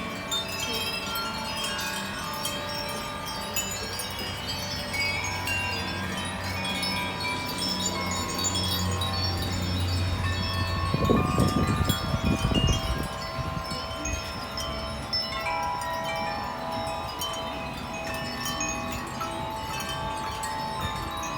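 Wind chimes ringing continuously, many tones of different pitch overlapping as they strike and sustain. About eleven seconds in, a low rumble lasting about two seconds is the loudest moment.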